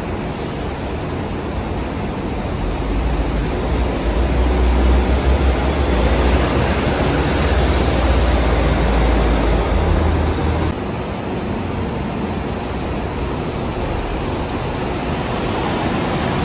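City bus engines in a bus interchange, with an articulated bus's engine giving a deep, steady rumble that grows louder a few seconds in and cuts off abruptly about two-thirds of the way through. After that a lighter engine noise continues as a second bus moves into the bay.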